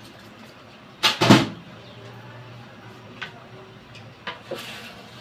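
Kitchen clatter of cookware and utensils: two sharp knocks in quick succession about a second in, the loudest sound, then a few lighter clicks and a brief rustle near the end.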